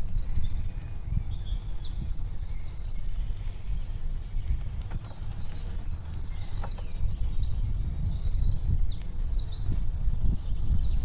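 Several songbirds singing in quick trills and chirps, over a steady low rumble from riding a bicycle along a paved path.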